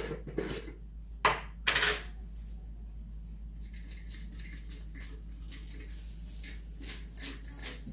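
Kitchen handling sounds from a mixing bowl: two sharp clatters a little over a second in and just under two seconds in, then faint scattered crinkling and rustling as pork floss is added to the savoury flattened rice flakes and handled in the bowl.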